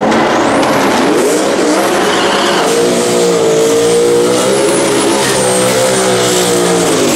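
Drag car engine held at high revs during a burnout, with tyre squeal. The pitch rises over the first two seconds, then holds high with a slight waver until it drops away near the end.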